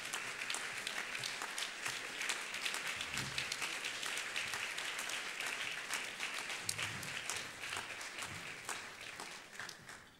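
Concert audience applauding, the clapping dying away near the end.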